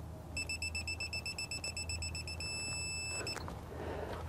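Digital torque wrench beeping: a fast run of high beeps, about seven a second, that then merges into one steady tone for about a second. The wrench is signalling that it has reached its 200 ft-lb setting on the spindle nut.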